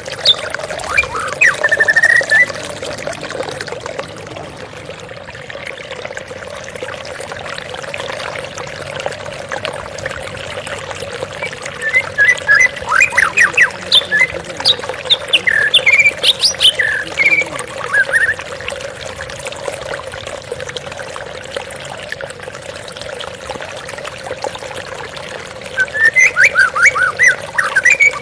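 Flowing water running steadily, with bird song in three bursts of quick chirps and trills: near the start, in the middle, and near the end.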